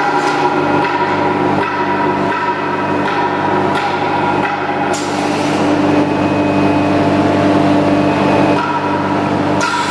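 CNC nesting router machine running: a steady machine hum with several constant pitches over a noisy rush, broken by a few sharp knocks.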